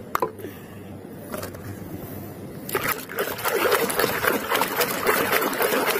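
A toy being scrubbed by hand in a basin of muddy, foamy soapy water: fairly quiet at first, then from about three seconds in a steady sloshing and crackling of wet foam.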